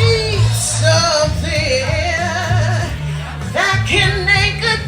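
A song: a sung lead vocal with vibrato and held notes over a steady, repeating bass line.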